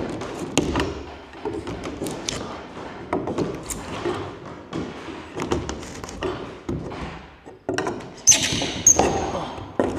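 Nailed wooden crate lid being pried open with a pry bar: scattered knocks and wood clunks, with a louder cluster and a short high squeak near the end.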